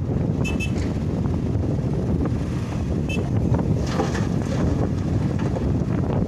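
Heavy earthmoving machinery, dump trucks and an excavator, running with a steady low rumble, wind buffeting the microphone, and a few short high chirps.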